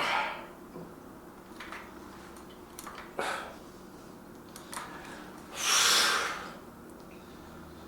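A man breathing hard under the effort of a set of arm curls: three forceful exhales, at the start, about three seconds in, and a longer, loudest one about six seconds in. Faint clicks come between them.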